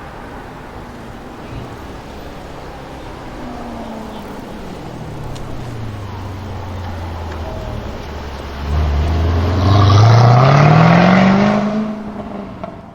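Jaguar F-Type SVR's supercharged V8 accelerating hard: after a quieter engine note that drops in pitch, the engine note climbs loudly for about three seconds from around nine seconds in, then fades away.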